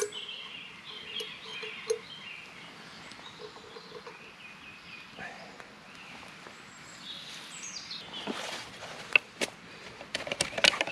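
Woodland songbirds singing short phrases of falling chirps, over a faint background hiss. Near the end, a few sharp clicks and knocks from close by.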